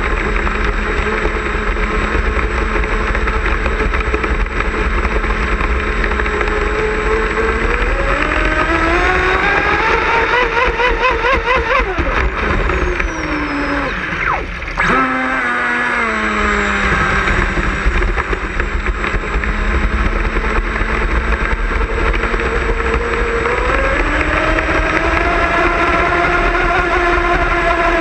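Miss Geico RC racing boat's motor whining as it runs over water, heard from a GoPro on the hull with water and wind rushing throughout. The pitch climbs and wavers about a third of the way in, falls and cuts back briefly near the middle, holds steady, then climbs again near the end.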